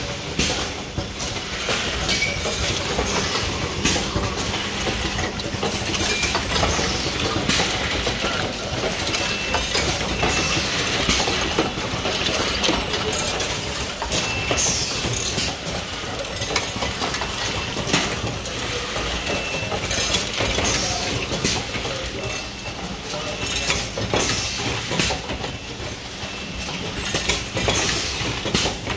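Automatic assembly machine for 6205 ball bearings running: a steady mechanical clatter with frequent sharp metallic clicks and clinks of steel balls and bearing rings.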